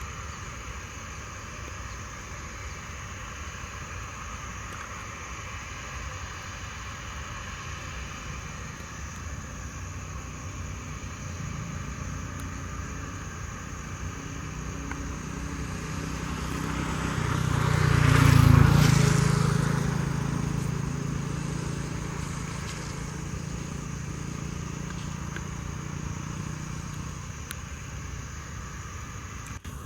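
Boeing 737-700's CFM56-7B jet engines passing by. The sound swells to a loud peak a little past the middle and then fades slowly.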